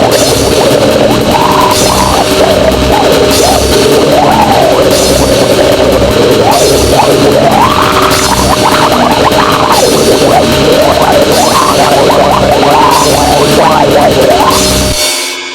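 Goregrind noise music: a loud, dense distorted wall of sound with drums under it and pitches that slide up and down. It stops suddenly near the end, leaving a fading tail.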